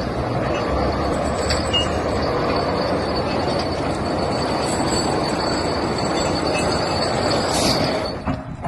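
A heavy construction machine fitted with steel tyre protection chains, running and moving with steady metallic grinding and a thin high squeal; the sound drops away near the end.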